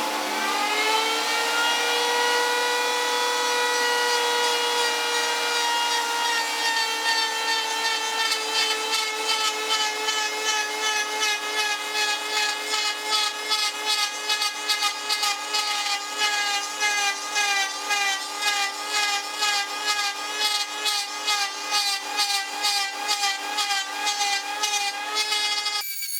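A table-mounted wood router spinning up to speed, its whine rising in pitch during the first second and then holding steady. From about eight seconds in the whine pulses evenly, about twice a second, as a wooden rod is turned against the molding bit while it cuts.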